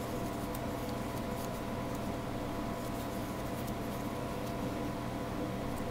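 Steady background hum with a few thin steady tones, and faint soft ticks from a steel crochet hook working cotton yarn.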